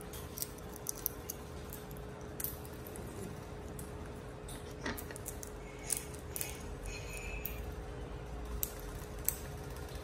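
African grey parrots cracking sunflower seed shells with their beaks: an irregular run of small sharp clicks and cracks.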